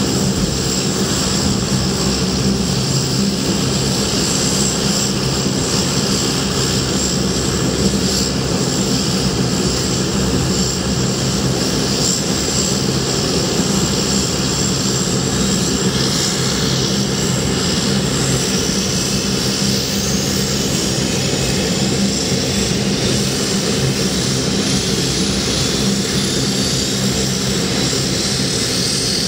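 Convair 580's two Allison turboprop engines running steadily, with the propellers turning. A faint whine climbs slowly in pitch over the last several seconds.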